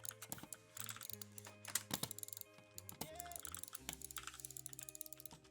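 Typing on an E-element Z88 75% mechanical keyboard: a quick, irregular run of key clicks. Background music plays underneath.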